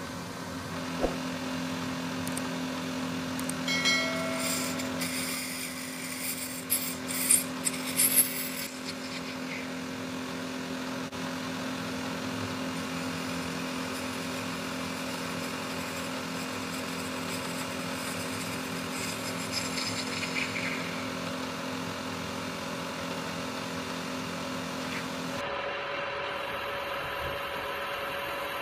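Small lathe running with a steady motor hum while a hand-held cutter turns a brass part, with brief high-pitched squeals from the cut about four to eight seconds in. Near the end the sound changes abruptly to a router bit cutting clear acrylic, a steady higher whine.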